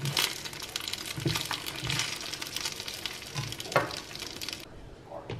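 Fish fingers sizzling and crackling as they fry in a non-stick pan, with a slotted spatula knocking and scraping against the pan several times. The sizzle cuts off suddenly near the end.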